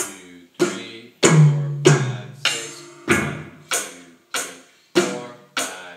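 Electronic drum kit played with sticks and heard through its amplifier: evenly spaced drum hits about every 0.6 seconds, each ringing briefly, with one longer, deeper ringing hit about a second and a half in.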